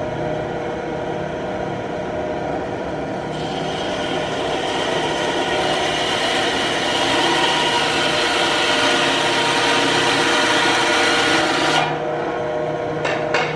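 Ryobi 9-inch benchtop band saw running, its blade cutting through an elk antler. A steady motor hum goes on throughout. About three seconds in, the blade bites into the antler with a louder rasping hiss, which stops about twelve seconds in as the cut goes through, leaving the saw running.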